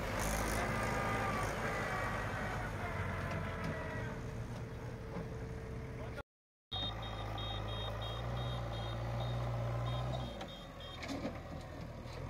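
Diesel tractor engine running steadily. After a brief break in the sound, a diesel engine keeps running while a backhoe loader's reversing alarm beeps evenly, about three beeps a second, for several seconds.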